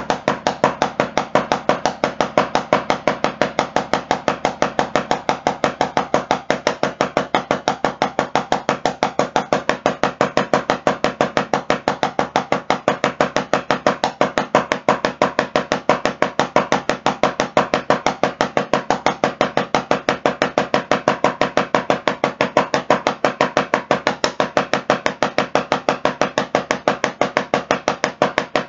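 Wooden drumsticks tapping a rubber drum practice pad in alternating single strokes: a fast, even stream of 16th notes, every stroke at the same loudness.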